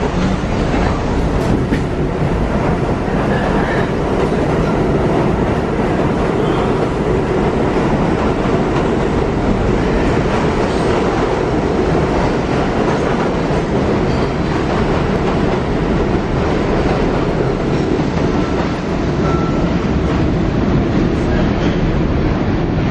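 Budd R32 subway train pulling out of the station and running past, a steady loud noise of steel wheels on the rails with some clickety-clack.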